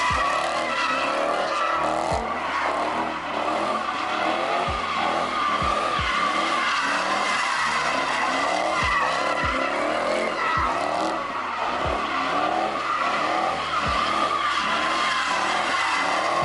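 A car drifting, its tires squealing in one long continuous screech with the engine running underneath.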